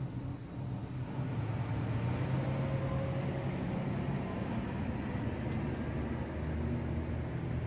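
Urban traffic: a steady low engine hum, with a louder rush of road noise building about a second in, like a vehicle passing.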